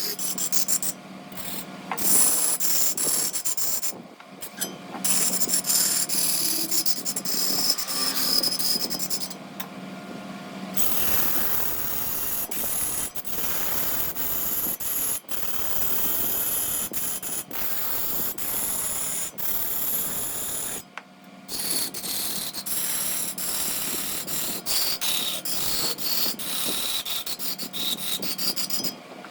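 Wood lathe running with a steady motor hum while a turning tool scrapes against the spinning wood; the sound breaks off suddenly several times, and the scraping is roughest from about a third of the way in to about two-thirds.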